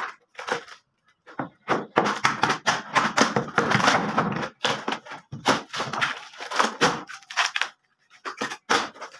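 Thin plywood skin of a wooden door being torn off by hand in strips: a run of cracks, splintering and ripping of thin wood in irregular clusters, the densest in the middle, with a short pause near the end.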